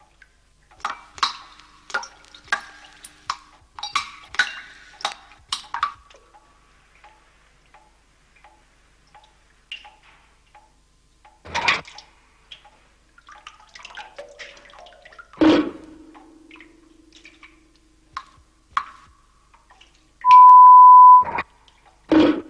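Water dripping and plinking at several pitches: a quick run of drips for the first few seconds, then slower, scattered single drips. About twenty seconds in, a loud steady censor bleep lasts about a second.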